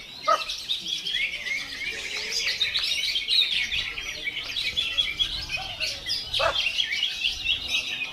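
Greater green leafbird (cucak hijau) singing a fast, unbroken run of varied chirps and warbled whistles, with a couple of quick downward swoops.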